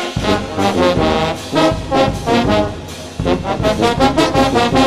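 Brass band playing, trombones and trumpets carrying a tune of quick, changing notes, briefly softer about three seconds in and then loud again.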